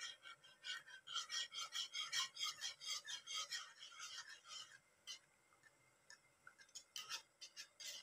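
Whisk stirring a pot of liquid brown-sugar coconut-milk pudding mixture, scraping against the pot in quick strokes, about three or four a second. After about five seconds it thins to occasional light taps.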